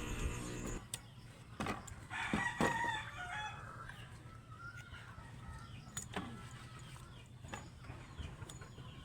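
A rooster crowing once, about two seconds in, among scattered sharp clicks and knocks. A steady hum stops under a second in.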